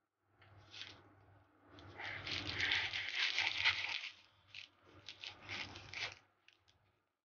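A knife cutting through crisp baked puff pastry sheets, splitting them into layers: a dry crackling, flaking crunch that is densest in the middle, then breaks into shorter crackles near the end.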